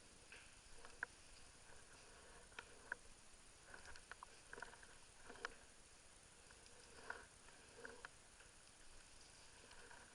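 Near silence over a steady hiss, broken by faint, irregular clicks and scuffs.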